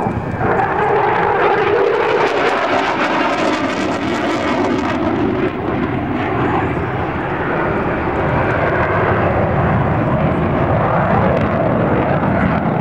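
Jet engine of an F-16D Fighting Falcon fighter flying a display pass overhead: a loud, steady rushing noise that shifts slowly in pitch as the jet moves.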